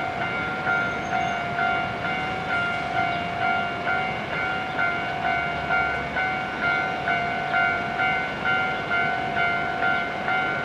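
Japanese level-crossing warning bell ringing: an electronic two-tone ding repeated steadily, about three strokes every two seconds, to warn of an approaching train.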